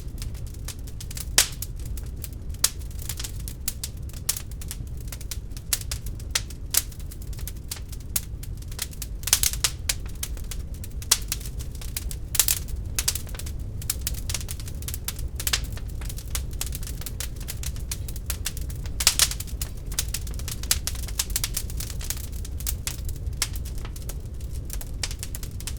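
Wood fire burning in a fireplace: irregular crackles and sharp pops, sometimes several in quick clusters, over a steady low rumble of the flames.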